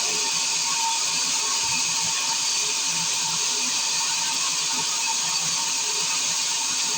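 Circular sawmill running with a steady high-pitched whine and hiss at an even level throughout.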